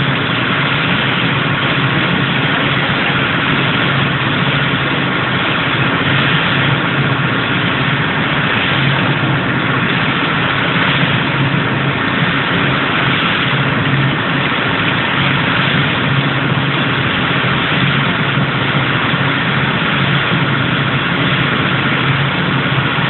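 A river boat's engine running steadily under way, under a constant hiss of water and wind.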